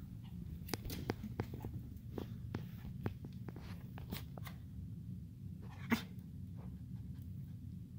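Havanese puppy scuffling and rolling on carpet, with soft snuffling breaths and many small scuffs, and one louder huff of breath about six seconds in.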